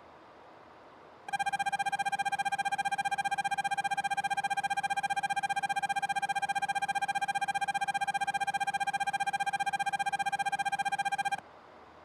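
Railway platform departure bell, an electronic ringing tone held on one pitch with a rapid warble, sounding for about ten seconds after the doors-closing announcement and cutting off abruptly; it signals that the train is about to depart.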